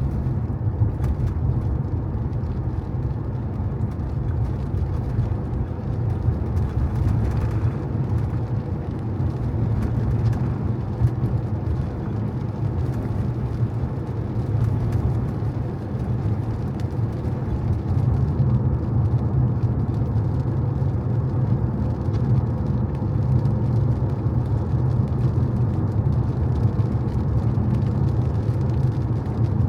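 Car driving on wet streets: a steady low drone of engine and tyres.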